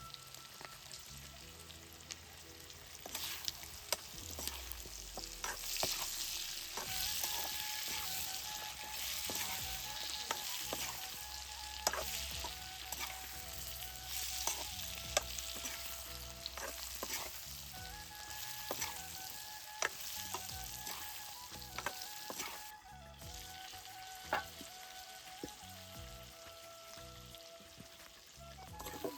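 Pork sizzling as it fries in a pan, stirred with a spatula that scrapes and knocks against the pan many times.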